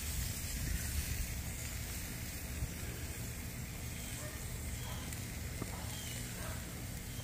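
Thin pork chops sizzling on the grates of a gas grill over burners set on low: a steady hiss.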